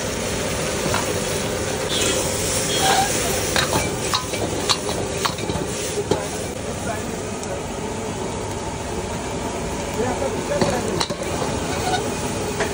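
Egg and tomato masala sizzling in a large wok over a gas burner while a long metal ladle stirs and scrapes it, with repeated sharp clinks of the ladle against the pan.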